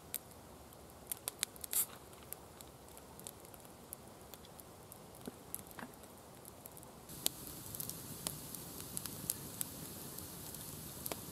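Freshly lit wood campfire crackling, with irregular sharp pops and snaps over a low hiss; the crackle grows louder and busier about seven seconds in as the fire catches.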